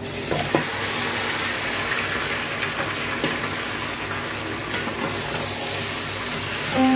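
Raw chicken pieces dropped into a hot stainless steel pan, sizzling steadily, with a few sharp knocks of a spatula against the pan as the chicken is stirred.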